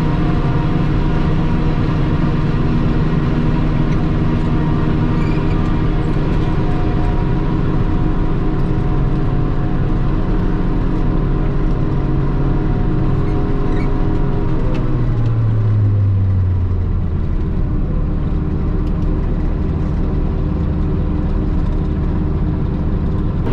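Self-propelled forage harvester running under load while chopping corn silage, heard from inside the cab: a steady engine and machine drone. About two-thirds of the way through the pitch drops and holds lower.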